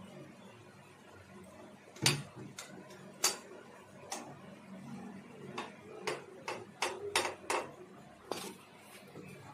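A dozen or so light, irregular metallic clicks, starting about two seconds in, as a thin piston-ring rail is worked by hand into the oil-ring groove of a new motorcycle piston, above its spring-ring expander.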